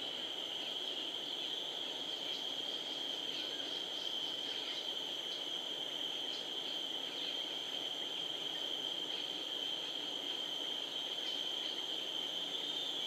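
Steady, high-pitched drone of insects, crickets or cicadas, over an even forest background hiss, with a few faint short chirps on top.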